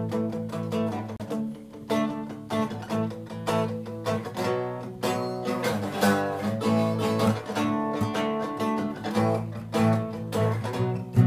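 Pop-rock band playing the instrumental intro of a song, led by strummed guitar chords.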